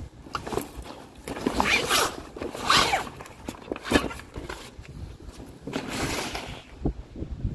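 Vinyl fabric of a Dometic slide-out topper awning being pulled out along its rail channel: a series of rasping, sliding strokes as the fabric's edge is drawn through the track in pulls.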